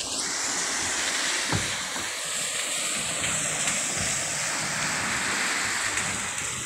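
Cars driving past on a rain-soaked road, their tyres hissing steadily through the water.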